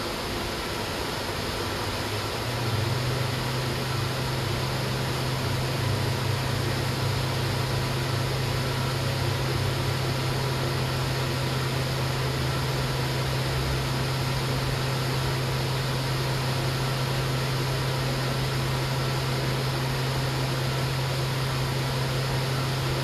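Steady hiss with a low machine hum that comes in about two and a half seconds in and then holds steady.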